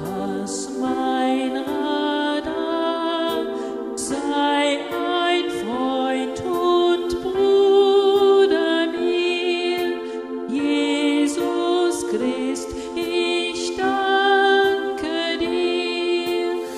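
Yamaha PSR-S900 arranger keyboard playing a slow, hymn-like melody in steady separate notes over held chords, with no bass line under it.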